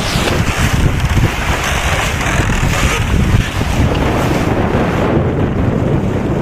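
Wind buffeting the microphone over the rush of water along the hulls of a sailing catamaran moving fast under sail. The sound is loud and steady.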